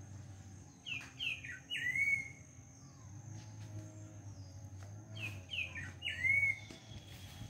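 A songbird singing the same short phrase twice, about four seconds apart: a few quick falling chirps followed by a longer slurred whistle.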